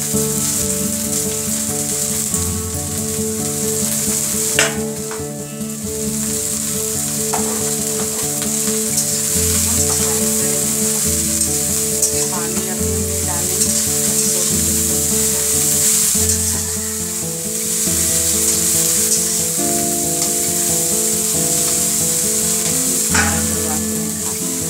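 Shredded cabbage and carrot sizzling as they stir-fry in hot oil in a kadai, with a metal spatula stirring and a few sharp knocks against the pan. Background music with held, stepping notes runs underneath.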